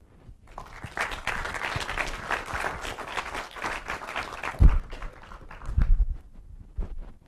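Audience applauding, starting about half a second in and dying away after about four seconds. Two low thumps follow, the loudest sounds here.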